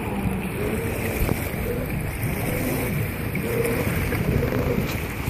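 A homemade jet boat's engine running out on the river, its pitch rising and falling, under a steady rush of wind and water noise.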